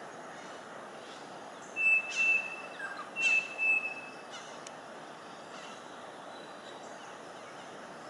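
Greater racket-tailed drongo calling: two loud notes about a second apart, each a sharp start running into a level whistle, followed by a few faint notes.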